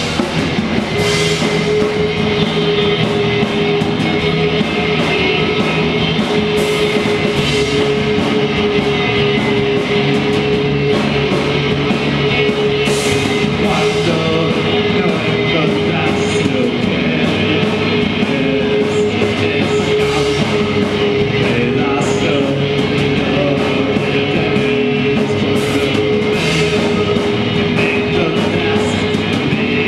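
Live rock band playing loud, dense music, with one note held steadily from about a second in.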